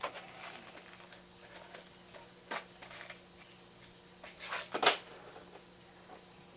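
Metal pellet tins being handled: a scatter of light clicks and rattles of pellets in a tin, with a sharper metallic clack just before five seconds in, the loudest sound.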